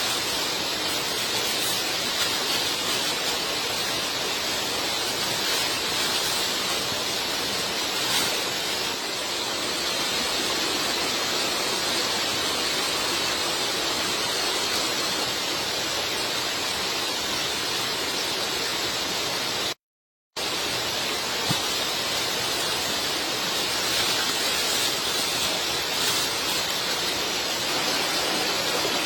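Steady rushing hiss with faint scattered ticks, like falling water; it cuts out completely for about half a second around twenty seconds in.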